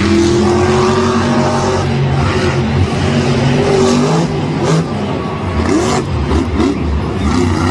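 Monster truck engine revving hard as the truck launches off a dirt jump. The engine is held at high revs at first, and its pitch sweeps up and down several times in the second half.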